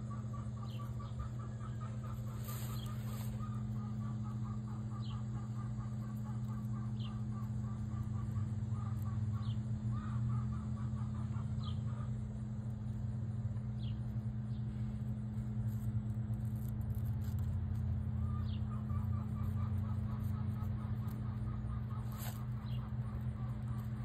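Outdoor ambience: a steady low hum throughout. Over it, birds give short high chirps every second or two, and a fast rattling trill comes and goes.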